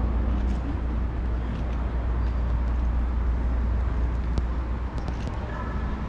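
Town-centre street ambience: a steady low rumble and a haze of road traffic noise, with a few faint clicks.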